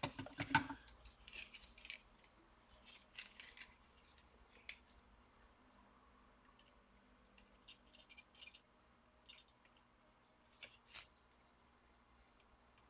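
Faint, scattered small clicks and light scrapes of hand tools and a circuit board being handled on a workbench, with a cluster near the start and a few isolated ticks later.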